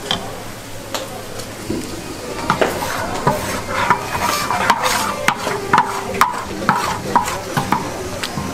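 Two plastic ladles stirring tteokbokki in thick sauce in a large round steel pan, with irregular clacks and scrapes against the metal that come thicker from about two and a half seconds in.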